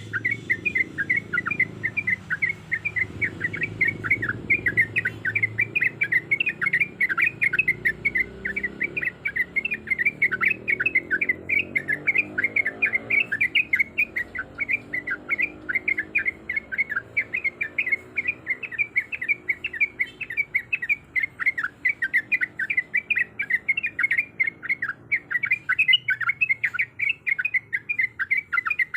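Yellow-vented bulbul (trucuk) chirping in a rapid, unbroken series of short, sharp notes, several a second. This is the kind of recording used to provoke caged bulbuls into singing.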